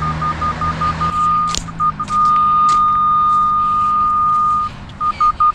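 Radiodetection RD8200 cable and pipe locator receiver sounding its locate tone as it picks up the transmitter's signal on a buried cast iron water main. Short beeps run into a steady held tone that cuts off abruptly, then fast even beeping of about four a second starts near the end.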